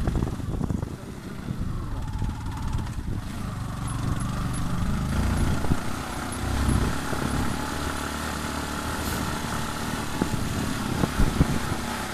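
Motorcycle engine running as the bike rides along, with rumble on the phone's microphone and a few louder knocks near the end.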